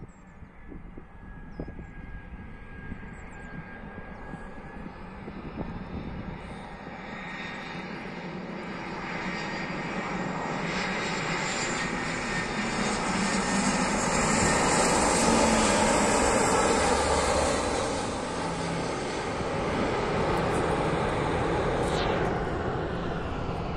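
Airbus A319 jet airliner arriving to land, its engine noise a steady rushing roar that builds over many seconds. It peaks a little past halfway and then eases slightly while staying loud.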